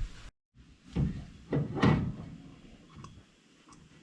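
Two dull metal clunks about a second apart, the second louder, as a disc brake rotor hub with its packed bearings is pushed onto the front spindle of a 1955 Ford Customline, followed by light handling noise.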